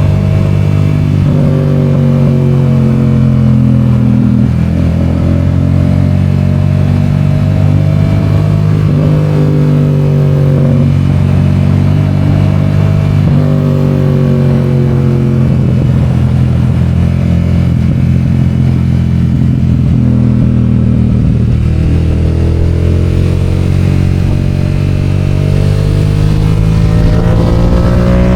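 Yamaha FZ-07's 689 cc parallel-twin engine running under way. Its pitch climbs and drops back several times, holds lower and steadier for a while in the middle, then climbs again near the end.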